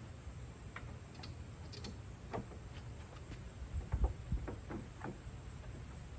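Scattered light clicks and taps of plastic headlight-assembly parts being handled and fitted into place, with a louder knock about four seconds in, over a low steady rumble.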